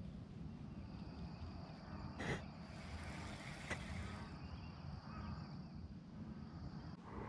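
A cast with a baitcasting rod and reel: a sharp swish about two seconds in, then a high, even whir of the spool paying out line for about two seconds, with a click partway through. Under it are a steady low rumble and a steady high drone of insects.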